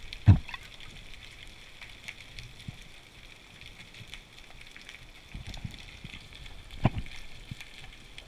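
Underwater ambience heard through a dive camera's housing: a steady crackling hiss, with a sharp knock just after the start and another about seven seconds in.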